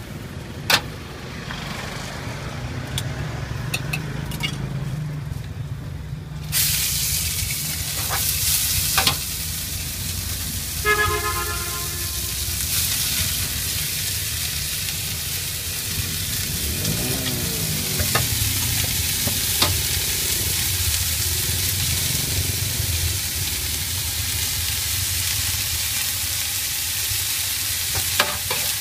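Yellow noodles and bean sprouts sizzling in a large flat wok, with a metal spatula stirring and clacking against the pan; the sizzle starts suddenly about six and a half seconds in. A vehicle horn sounds briefly near the middle, over low street traffic.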